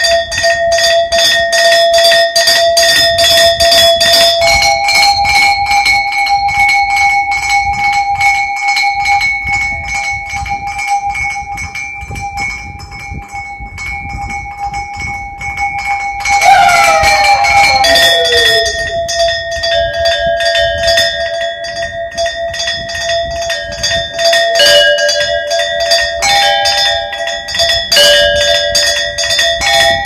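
A row of Kutch copper cow bells, graduated in size and mounted on a wooden board, struck rapidly with two beaters in a fast tremolo so that each bell rings on in a sustained note, the notes changing every few seconds. About sixteen seconds in, a pitch glide sweeps down over about two seconds.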